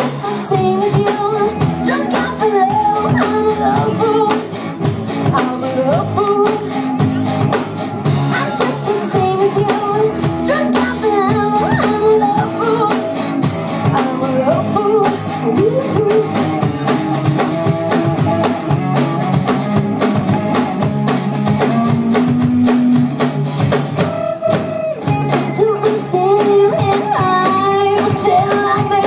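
Live rock band playing: electric guitar and drum kit with a singer's voice over them.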